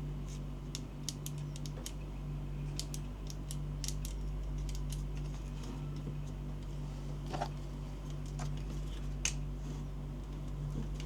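Irregular light clicks and taps of small objects being handled, a few slightly louder ones late on, over a steady low hum.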